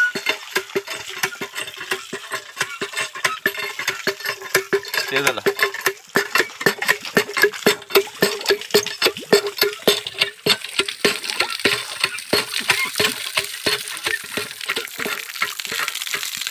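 Cast-iron hand pump being worked: its handle and rod clink and clank rapidly, several metallic clicks a second, while water pours from the spout.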